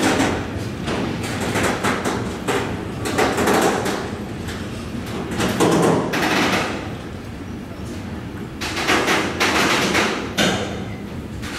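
Container freight train rolling past at close range: a steady rumble with the wagons' wheels clattering and banging in repeated irregular bursts.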